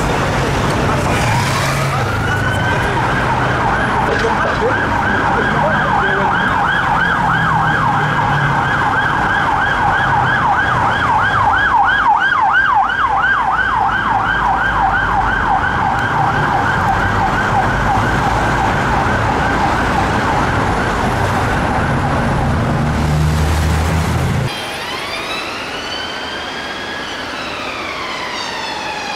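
Police car sirens on a fast yelp, sweeping rapidly up and down, with vehicle engines and traffic rumbling beneath. About 24 seconds in they cut off suddenly, and a different police siren takes over on a slow wail, rising and falling.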